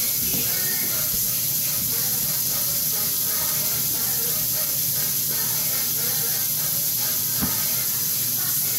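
Steady high-pitched hiss, with faint indistinct sounds beneath it and one light knock about seven and a half seconds in.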